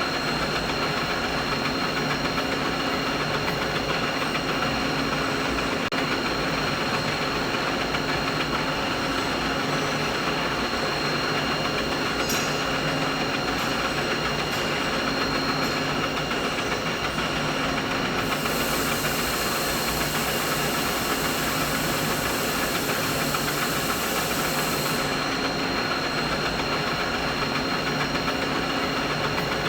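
Steady machine noise: a continuous mid-pitched mechanical hum and hiss with faint steady tones, unchanging in level. An extra high hiss joins about eighteen seconds in and stops about seven seconds later.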